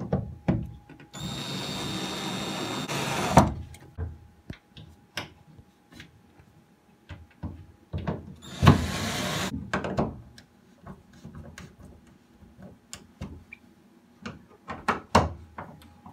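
Cordless drill driving screws into the wooden frame of an infrared heater panel on a wood-panelled sauna wall. It runs twice, for about two seconds each, about a second in and again about eight seconds in. Scattered knocks and clicks of wooden panels being handled come between and after.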